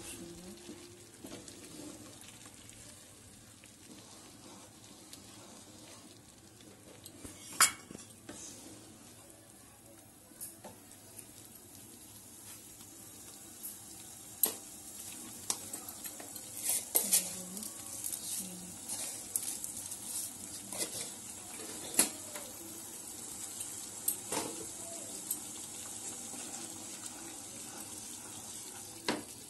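Wooden spatula stirring and scraping a thick creamy gravy in a non-stick frying pan over a steady sizzle of simmering, with sharp knocks of the spatula against the pan now and then, more often in the second half.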